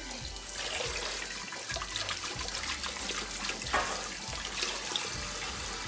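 Water running steadily from a kitchen sink faucet as hands are washed under it.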